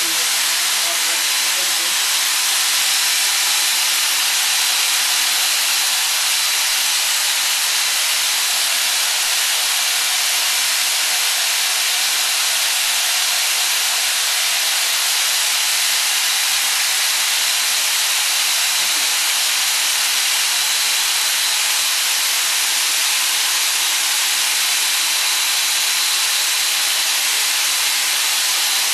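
Homemade magnetic pulse motor running steadily at speed: an even hiss with a faint, steady high whine.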